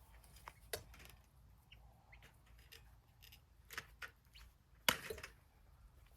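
Scattered light clicks and taps of barbed wire and chicken mesh being handled on a fence, the sharpest one about five seconds in.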